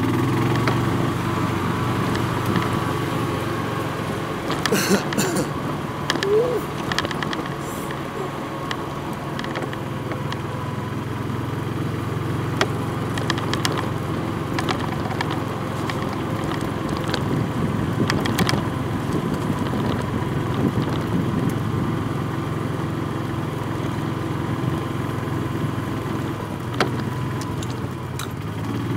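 Golf cart running as it drives along a path and across grass: a steady hum with a faint held whine, broken now and then by short rattles and knocks.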